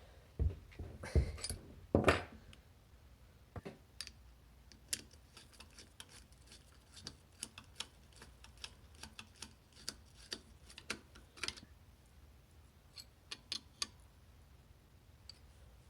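Hand tools and small metal engine parts being handled while a small engine's cover is worked on: a few louder knocks in the first couple of seconds, then a scatter of light metallic clicks and ticks.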